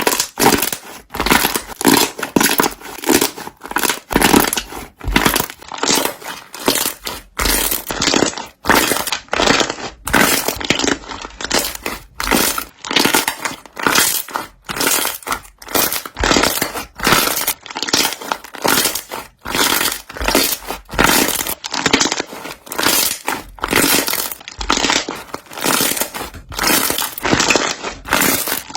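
Slime being squeezed and kneaded by hand, its trapped air bubbles popping and crackling in squelchy bursts over and over.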